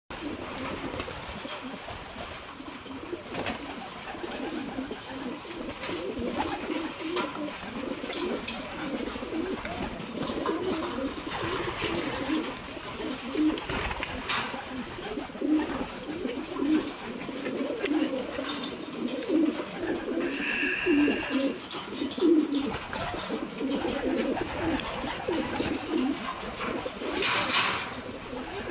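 A flock of domestic pigeons cooing together: many overlapping low, warbling coos, with scattered light clicks.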